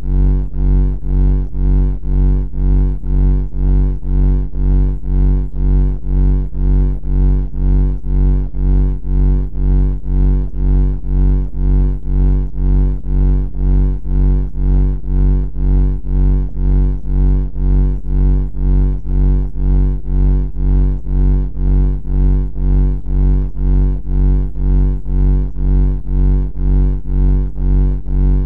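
A loud, low-pitched buzzing drone that throbs evenly, about twice a second, without let-up.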